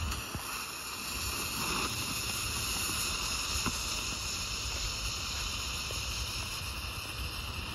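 A small ground firework spraying a jet of sparks across concrete, giving a steady, high-pitched hissing whine.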